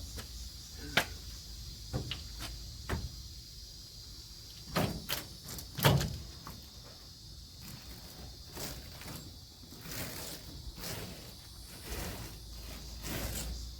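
Scattered knocks and clunks of things being handled, the loudest about six seconds in, over a steady high hiss.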